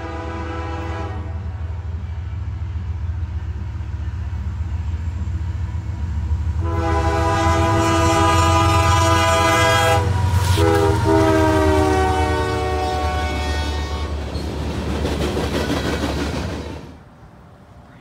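Canadian Pacific GE ES44AC diesel locomotive sounding its fouled, off-tune multi-chime air horn over the low rumble of its engine: a blast that ends about a second in, then a long blast from about seven seconds whose pitch drops as the locomotive passes. The rumble and rattle of the passing freight cars follow, cutting off about a second before the end.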